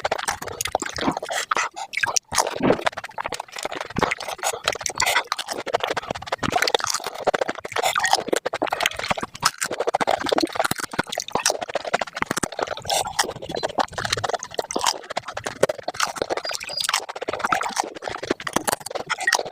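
Pani puri being eaten and played back at five times speed: a dense, rapid run of crackles and wet, slurpy smacks as the crisp shells crunch and the spiced water is slurped.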